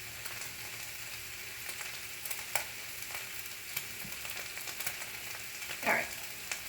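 Ground beef frying in a cast iron skillet: a steady sizzle with scattered crackles and pops. There is a short falling sound near the end.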